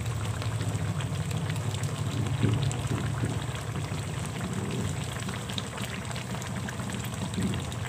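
Chicken adobo sauce simmering in a wok with a steady fine bubbling and crackle over a low, even hum.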